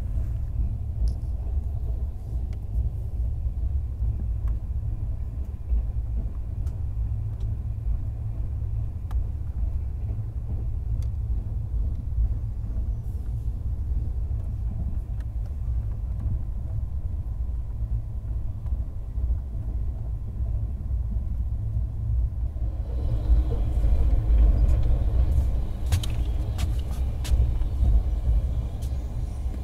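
Express train running at speed, heard from inside the air-conditioned passenger coach as a steady low rumble. About three-quarters of the way through it gets louder and harsher, with a few sharp clacks near the end.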